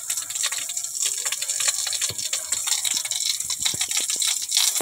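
Water hissing and splashing steadily, with scattered small clicks through it.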